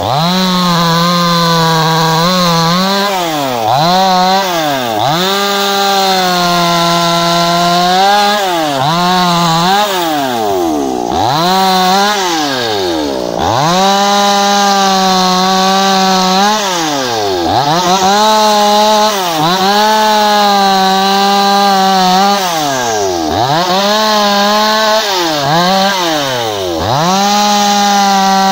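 Two-stroke petrol chainsaw cutting through tree branches. It revs up to full throttle and holds there through each cut, then drops back toward idle between cuts, about a dozen times over and over.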